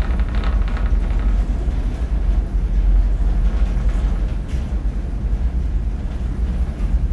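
Deep, steady rumble of a Washington State ferry under way, with loose metal on board rattling faintly now and then.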